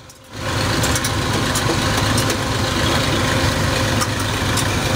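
Mustard-oil expeller (a screw press on a trailer) running under its engine: a loud, steady mechanical hum with scattered light clicks, starting abruptly a moment in.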